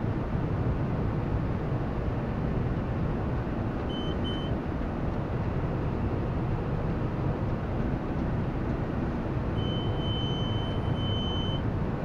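John Deere tractor pulling a round baler through hay, heard from inside the cab: engine and baler running steadily. A high electronic beep sounds twice briefly about four seconds in, then holds as one long tone for about two seconds near the end.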